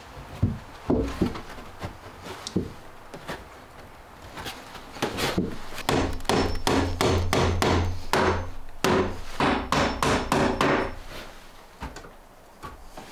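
Repeated knocks and taps, scattered at first, then coming fast and close together for several seconds in the middle with a low hum underneath, before easing off.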